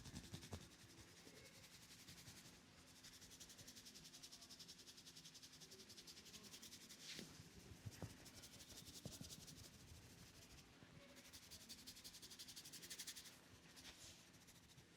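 Faint rustling of hands rubbing briskly through hair and over the scalp in a head massage, in a quick even rhythm that comes and goes, with a few small clicks in the middle.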